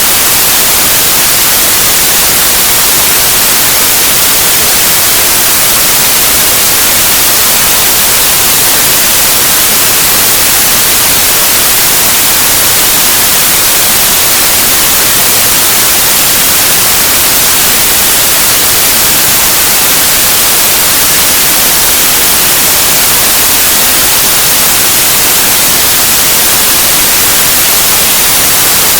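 Loud, steady synthetic white noise: an even hiss, heaviest in the high treble, that does not change.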